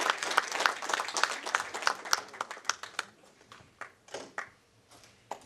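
Audience applause, dense clapping that dies away about three seconds in, followed by a few scattered knocks.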